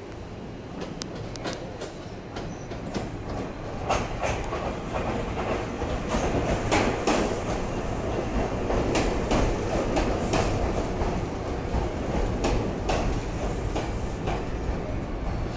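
Chichibu Railway 7500 series (ex-Tokyu) three-car electric train rolling slowly into the platform. Its wheels give a rumble and irregular clacks over the rail joints. It gets louder about four seconds in as the cars pass close.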